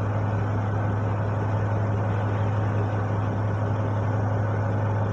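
Fishing boat's engine running steadily, a constant low hum with noise of the boat under way.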